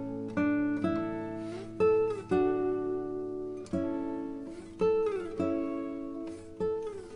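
Background music of a plucked acoustic guitar: notes and chords struck every half second or so and left to ring out, some sliding down in pitch.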